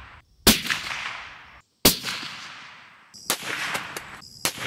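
Two rifle shots from a 7mm-08 Ruger American Gen 2 with a 20-inch barrel, about a second and a half apart, each followed by an echo that fades over a second or so. Two more sharp cracks follow in the last second and a half.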